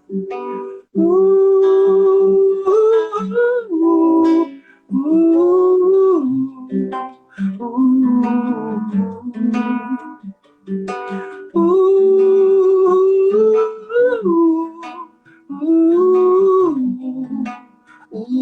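Acoustic guitar plucking under a wordless sung or hummed melody of long held notes. This is an instrumental-style interlude between verses of a song.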